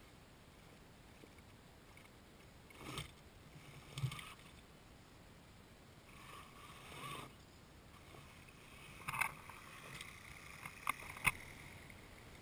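Radio-controlled scale rock crawler working over rocks: its electric motor and drivetrain whir in short bursts, one with a gliding whine, as the tyres scrabble on stone, with a few sharp knocks near the end.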